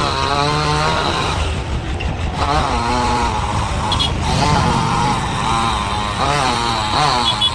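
Two-stroke chainsaw engine revving up and down over and over, its pitch rising and falling about once a second, with a steady low engine rumble underneath.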